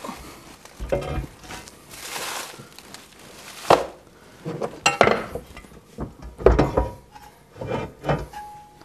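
Metal lathe bed parts being moved and set down on a wooden workbench: several knocks and clanks of metal on wood and metal, with a brief scraping slide early on.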